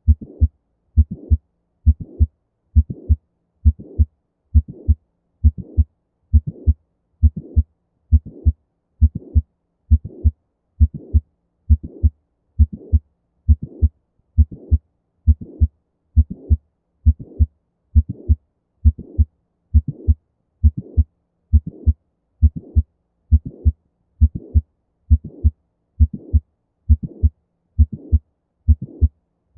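Heart sounds of mitral valve prolapse: each beat has a mid-systolic click followed by a late systolic murmur. The beats repeat in a steady rhythm at about one a second.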